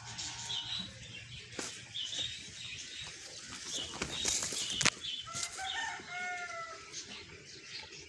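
A rooster crowing once, a pitched call of about a second and a half starting about five seconds in, over repeated short high chirps of small birds and a few sharp knocks.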